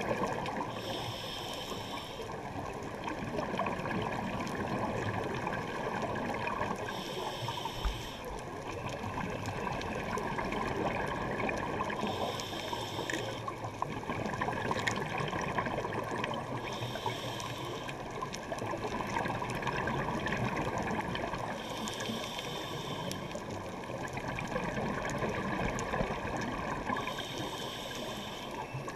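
A scuba diver breathing through a regulator underwater: a short hissing inhale about every five seconds, six in all, over a steady bubbling rush of water noise.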